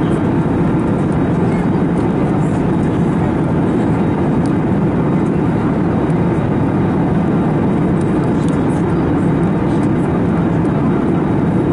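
Steady, even cabin noise of an Airbus A321neo airliner in flight: a constant low rushing hum of airflow and engines, with no change in pitch or loudness.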